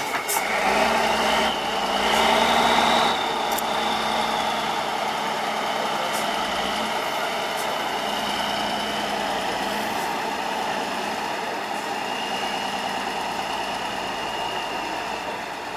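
Tatra 815 8x8 trial truck's diesel engine working under load as the truck crawls over sand mounds. It is louder for the first three seconds or so, then runs steadily.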